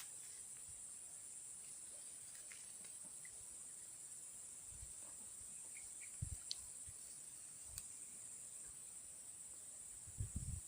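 Steady high-pitched insect chorus, like crickets, with a few soft low bumps, the loudest about six seconds in and near the end.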